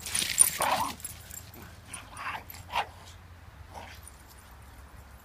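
Shiba Inu giving short barks and yips: a loud one in the first second, then a few shorter ones between two and four seconds in.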